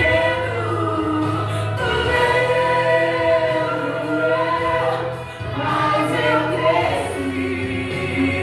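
Gospel song sung with long held notes over a steady instrumental accompaniment, with the voices sounding like a choir.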